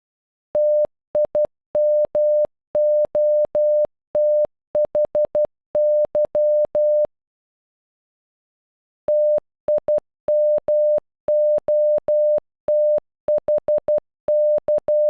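Morse code for "TIMOTHY" (- .. -- --- - .... -.--) keyed as a single pure mid-pitched beep tone, in short dots and longer dashes. The word is sent twice, with a pause of about two seconds between.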